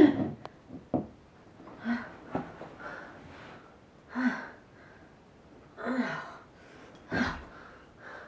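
A woman's groans and heavy breathy sighs, about five short ones a second or two apart, some dropping in pitch. A couple of faint clicks come about a second in.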